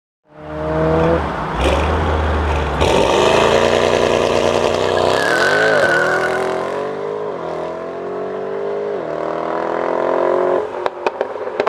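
Straight-piped Mercedes G500 4x4² V8 exhaust, revving up and down repeatedly under load, with a brief high whine about halfway through. Near the end the engine note drops away into a quick run of sharp pops.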